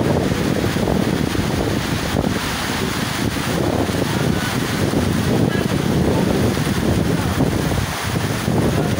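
Wind from a heavy rainstorm buffeting the microphone, a steady low noise, with rain falling.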